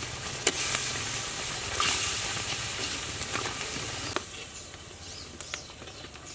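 Coconut cream sizzling in a metal pot as chili and palm sugar are stirred in with a metal spatula, with a few clicks of the spatula against the pot. The sizzle falls away about four seconds in, leaving faint bird chirps.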